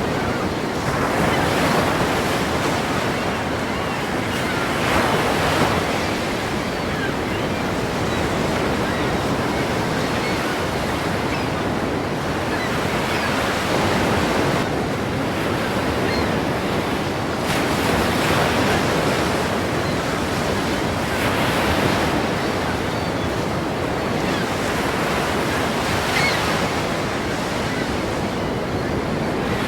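Ocean surf: a steady rush of breaking waves, swelling a little every few seconds as each wave comes in.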